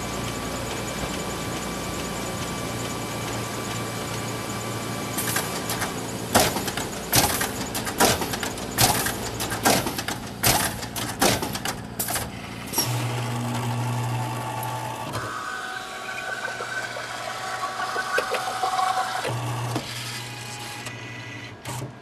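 Photocopier running with a steady hum, then a run of sharp, irregular clacks from about five seconds in. After the clacks, a louder low motor hum and a whirring with shifting tones take over, stopping just before the end.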